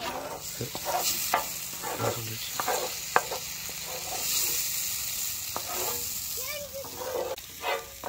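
Flat spatula scraping thick pav bhaji across a large iron griddle and pushing it onto a steel plate, in irregular scrapes and knocks over a light sizzle from the hot griddle.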